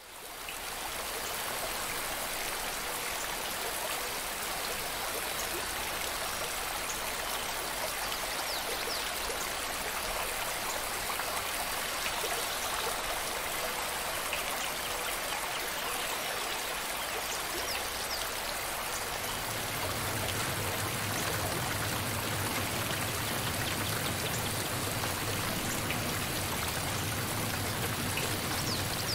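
Steady running water of a flowing stream, rushing and trickling. A low rumble joins in about two-thirds of the way through.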